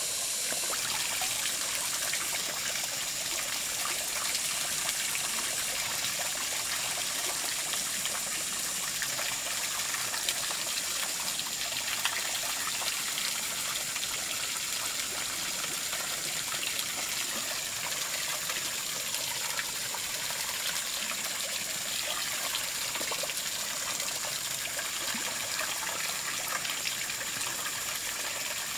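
Steady trickle of running water, with a faint steady high whine above it.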